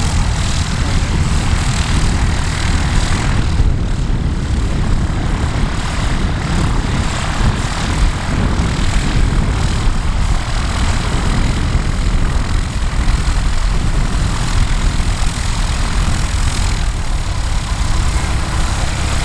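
Light propeller aircraft's piston engine running steadily and loudly close by.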